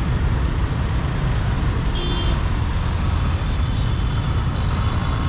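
Steady city road traffic noise with a heavy low rumble of passing vehicles, and a brief high tone about two seconds in.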